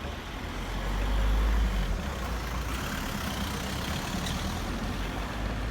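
Low rumble of a large road vehicle's engine with a steady background of traffic noise, swelling louder about a second in.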